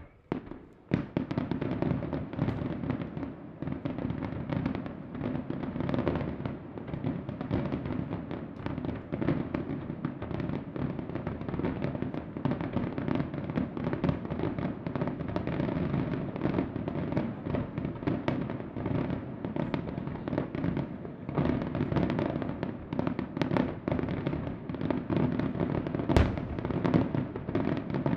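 Colangelo Fireworks aerial display: a rapid, unbroken barrage of shell bursts and crackling stars, starting about a second in, with one sharper, louder bang near the end.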